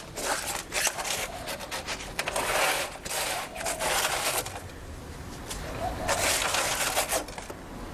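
Gritty scraping of fresh concrete against steel, in several uneven strokes with short pauses, as excess concrete is cleared from around the base of a filled slump cone in its steel pan.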